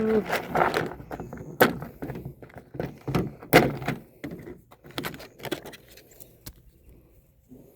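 Irregular metallic clanks, clicks and knocks of tools and parts being handled, opening with a short squeak; two sharp knocks, about one and a half and three and a half seconds in, are the loudest, and the sounds thin out near the end.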